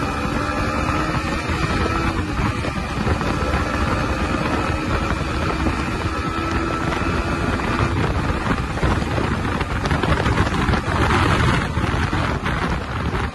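Yamaha MT-15's 155cc four-stroke engine running as the motorcycle accelerates from about 50 to over 100 km/h, mostly buried under loud wind rushing over the microphone.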